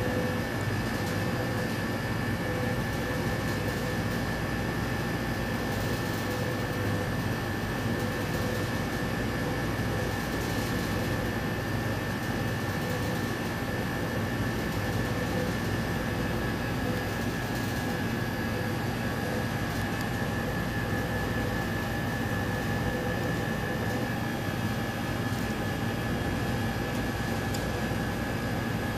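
Steady hum of laboratory equipment cooling fans and air handling, with a faint constant high-pitched whine over it.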